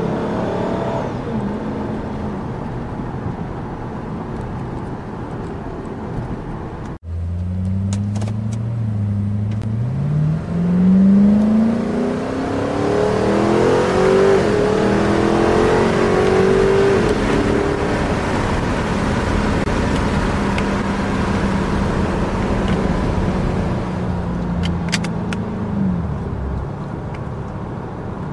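Ford Mustang Shelby V8 with its factory stock exhaust, heard from inside the cabin while driving. The engine note cuts out for a moment about seven seconds in, then rises steeply as the car accelerates, dipping briefly once. It settles into a steady cruise and falls away near the end.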